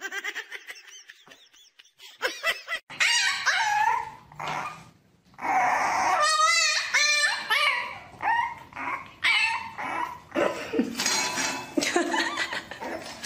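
A puppy whining and yipping: a string of high cries that waver in pitch, starting a few seconds in.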